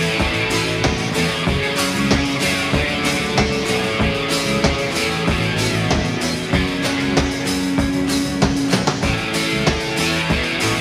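Live rock band playing an instrumental passage: guitars holding a melody over bass and a steady drum kit beat, with no vocals.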